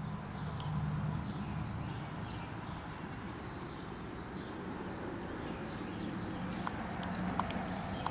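Outdoor ambience: scattered faint bird chirps over a steady low hum, with a few small ticks near the end.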